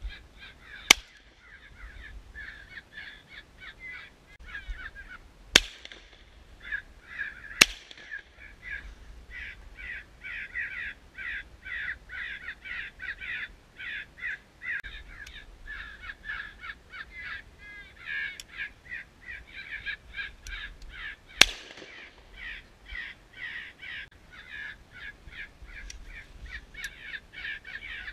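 Crows cawing over and over, broken by four sharp shots from a 12-gauge over-and-under shotgun: one about a second in, a pair two seconds apart a few seconds later, and one past the middle.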